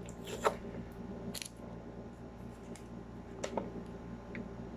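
Handling of a cardboard cake box and its packaging: a few scattered light clicks and rustles over a steady low electric hum.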